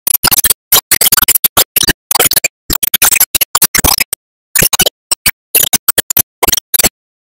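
Soundtrack music made of chopped, stuttering bursts of scratchy noise, like DJ record scratching, each burst cut off into dead silence; it stops shortly before the end.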